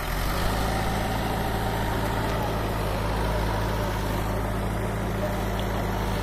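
Excavator's diesel engine running steadily. Just after the start its note steps up and grows a little louder, then holds even.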